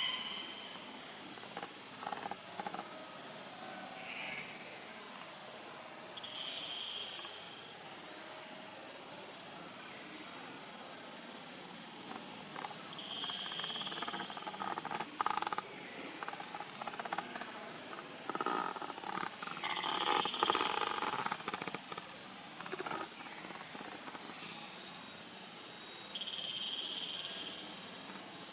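Outdoor nature ambience: a steady, high insect chorus of crickets or similar insects, with a short call repeating about every seven seconds and other scattered animal sounds.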